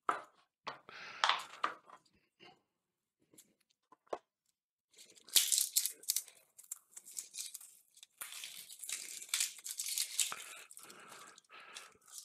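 Dry onion skins being peeled off by hand, crackling and tearing in irregular bursts, with a few sharp clicks.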